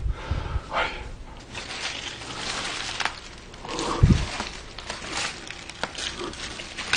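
Footsteps through dry grass and leaf litter, with rustling of brushed vegetation and scattered small snaps, and a dull thump about four seconds in.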